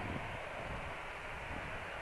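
Distant jet engines of an Airbus A321 airliner running at idle while it stands on the runway: a steady rumble and hiss with no change in level.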